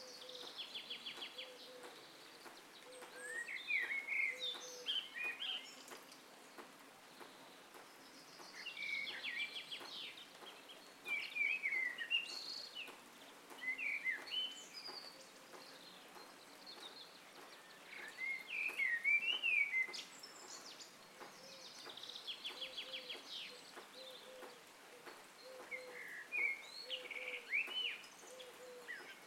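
Red-vented bulbul calling: bouts of short, chirpy whistled notes that slide up and down, mixed with quick rattling trills, coming every few seconds over a faint background hiss.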